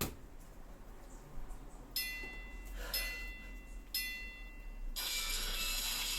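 Three short bell-like chime tones, one a second, then background music starts about five seconds in.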